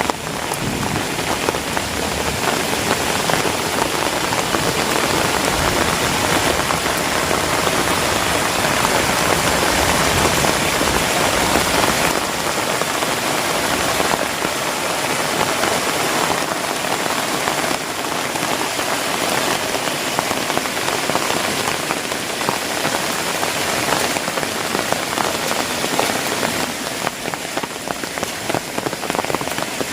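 Heavy rain falling steadily on foliage and ground, a dense continuous hiss of drops with a low rumble under it in the first part that fades out a little under halfway.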